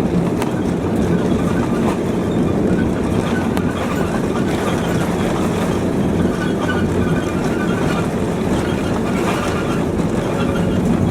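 Cabin noise inside an Airbus A330-300 rolling on the ground after landing: a steady, loud rumble of the wheels and airframe over the runway or taxiway, with a low drone of the engines.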